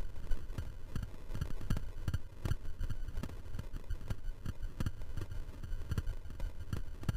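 Fat bike rolling downhill over snowy singletrack: a steady low rumble with irregular knocks and rattles as the bike jolts over bumps.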